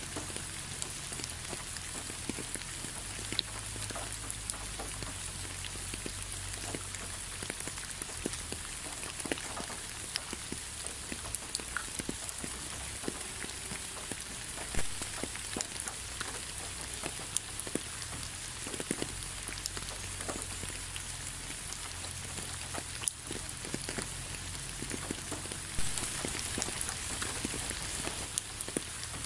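Steady rain falling, an even patter with many separate close drops ticking and a few louder drops now and then.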